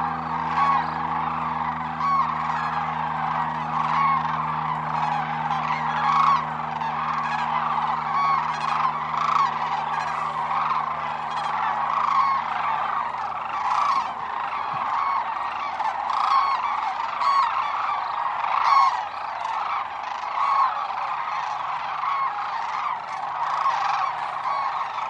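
A large flock of sandhill cranes calling all at once, a dense unbroken chorus, as flocks leave their roost and fly off. A steady low hum runs beneath it and fades out about halfway through.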